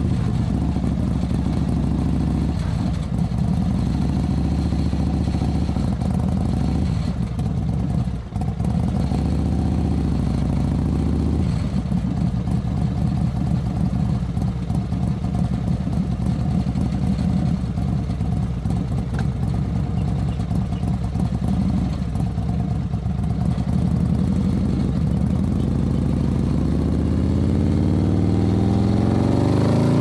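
Motorcycle engine running at low revs while riding, a steady low drone. It dips briefly about eight seconds in and grows slowly louder near the end.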